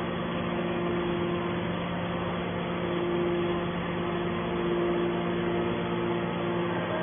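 Hydraulic scrap metal baler running: a steady hum from its hydraulic power unit, with a higher whine that drops out for about a second and then returns.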